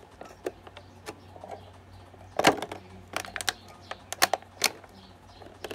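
Scattered sharp clicks and clatter of a metal open-end wrench and a plastic water bottle with its bleed hose being handled as they are taken off a motorcycle brake caliper's bleeder valve, the clicks coming thickest from about halfway on.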